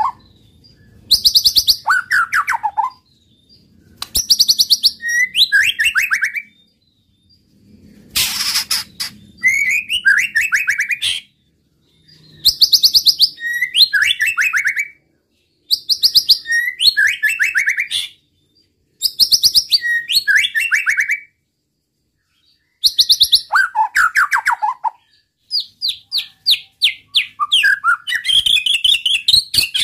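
White-rumped shama (murai batu) singing loudly close to the microphone, repeating short phrases every two to three seconds, each a fast run of high notes that drops into a lower, rapid series. About eight seconds in comes one harsh burst, and near the end a quicker string of notes.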